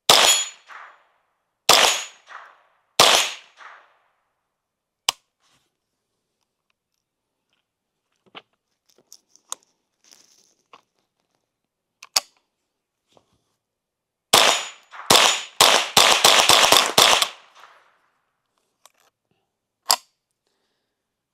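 Unsuppressed Ruger 10/22 .22 rifle firing: three single shots about a second apart, then light clicks and rattles as the action is worked to clear a jam. About eleven seconds in comes a rapid string of about nine shots. The rifle keeps jamming, which the shooter puts down to old, probably 15-year-old ammunition.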